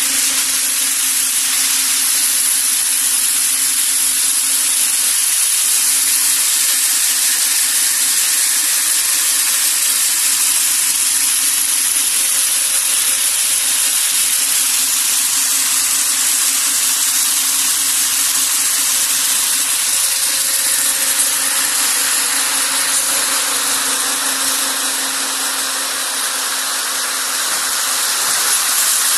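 Hazelnut bagging machine running steadily: a loud, even rushing hiss over a steady low motor hum.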